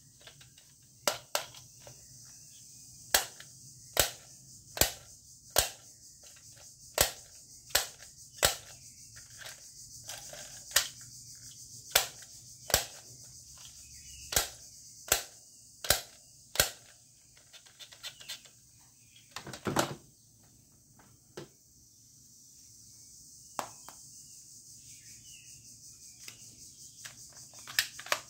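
Plastic toy pistol being dry-fired: sharp clicks of its trigger mechanism, about one a second for some fifteen seconds. These are followed by a brief rustle of handling and a few scattered clicks.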